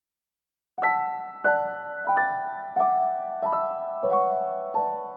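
Calm instrumental piano music beginning a little under a second in, with chords struck about every two-thirds of a second and left to ring and fade.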